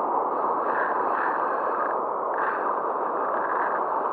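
Fast river water churning below a weir, a steady rushing noise that does not let up.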